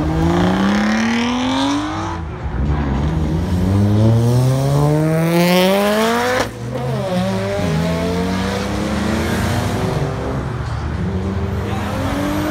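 Car engine revving hard as the car accelerates, its pitch climbing in two long rises, then dropping sharply about six and a half seconds in when the throttle is lifted; after that the engine runs at a steady pitch.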